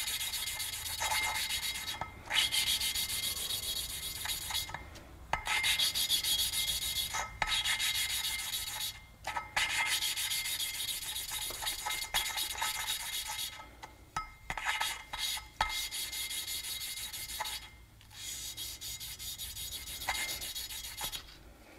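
Valve lapping: an intake valve being spun back and forth by hand against its seat in a Yamaha TMAX 500 cylinder head, with valve grinding compound rasping between the valve face and the seat. The grinding runs in stretches of a few seconds with short breaks, and it grows quieter over the last few seconds as the seat smooths out.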